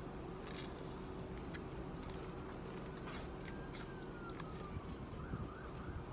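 Crisp ice cream cones crunching as they are bitten, with chewing: scattered short, sharp crunches over a steady low hum.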